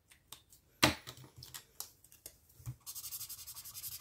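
Crayola Supertip felt-tip markers handled on a desk: a sharp click about a second in and a few lighter clicks and taps, then rapid back-and-forth scribbling of a marker tip on paper near the end as a colour swatch is laid down.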